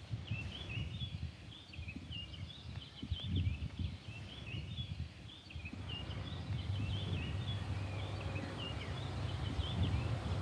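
Small birds chirping and singing in a continuous run of short, high notes, over a low rumble that grows louder in the second half.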